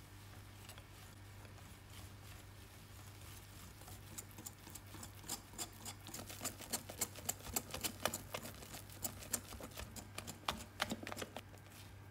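Wire balloon whisk stirring flour into cake batter in a glass bowl, its wires clicking against the glass several times a second. The clicking starts about four seconds in, gets louder, and stops shortly before the end, over a steady low hum.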